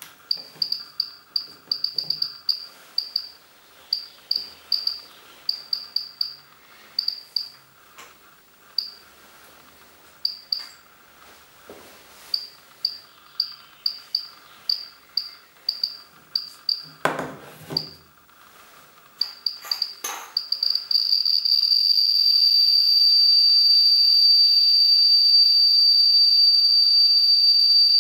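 FAG IM 7001 dosimeter's audible count indicator giving short, irregular high beeps, one per detected count, a few a second. A burst of handling noise comes about 17 seconds in. Near 21 seconds the beeps run together into one continuous high tone as a radioactive check source is held against the probe, the count rate climbing to thousands of counts per second.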